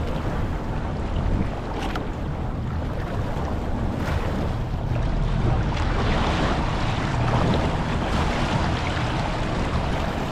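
World Cat 295CC power catamaran running across open water: steady rush of water past the hull and wind buffeting the microphone, over a low engine drone.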